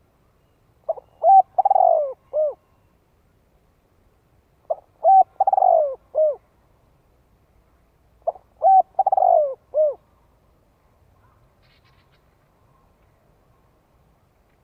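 Spotted dove cooing its song three times, one phrase about every three and a half seconds. Each phrase is a short first note, a quick second note, a longer falling coo and a short final note.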